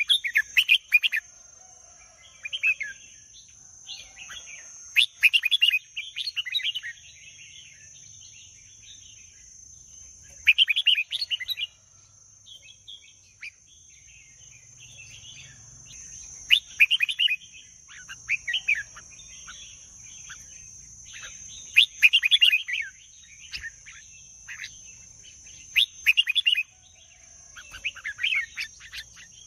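Red-whiskered bulbul singing: short whistled phrases repeated every one to three seconds, over a steady high-pitched whine.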